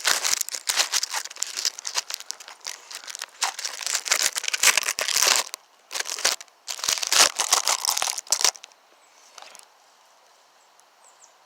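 Crinkling and crackling close to the microphone, like something being crumpled and handled, in two spells of about five and two seconds, then quiet.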